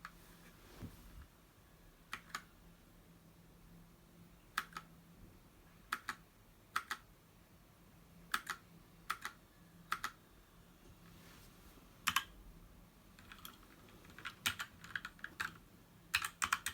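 Keychron K4 mechanical keyboard with brown tactile switches being typed on: scattered single keystrokes and short pairs at first, then quickening into a run of keystrokes near the end.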